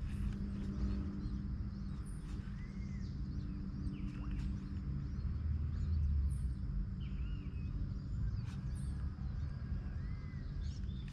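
Birds calling: scattered short chirps and a few rising-and-falling whistles, over a steady low hum.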